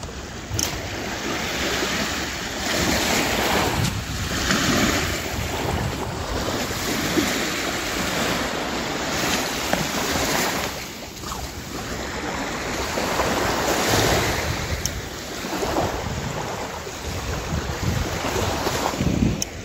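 Small sea waves washing up a sandy beach and drawing back, the surf noise swelling and easing every few seconds.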